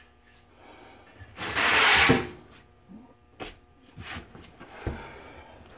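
A strong breath blown into a smoking tinder bundle, a rush of air lasting just under a second, followed by a few soft knocks.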